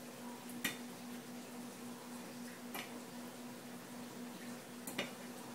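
Three small sharp clicks about two seconds apart, as wire connectors are pushed into the sockets on modular LED boards, over a steady low hum.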